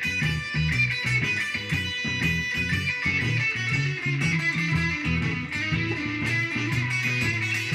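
Instrumental blues played on guitar: quick plucked notes over a low bass line.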